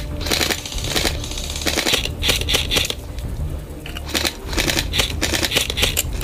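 Dry brambles, bracken and twigs crackling and snapping in quick clustered runs as someone pushes through dense undergrowth, with a low rumble of handling and wind underneath.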